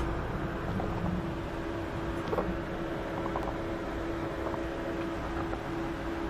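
Heavy rain pouring steadily, with a steady hum underneath and a few faint taps about two and a half seconds in.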